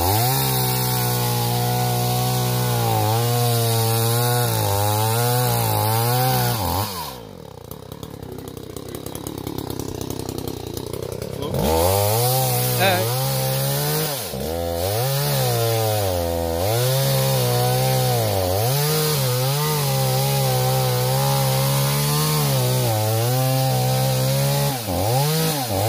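Chainsaw cutting through wood, its engine pitch sagging and recovering under load. About seven seconds in it drops back to idle, then revs up again near twelve seconds and keeps cutting with repeated dips in pitch.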